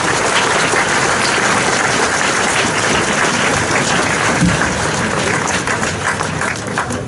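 Crowd applauding: dense, steady clapping that dies down near the end.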